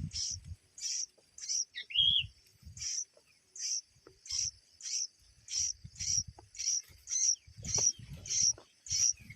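Birds chirping: short high-pitched chirps repeated about twice a second, with one lower, rising whistled note about two seconds in. Soft low thuds come and go underneath.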